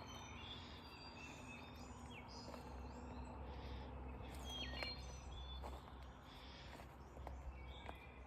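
Several birds singing and chirping, with short whistled notes and trills overlapping, over a steady low rumble.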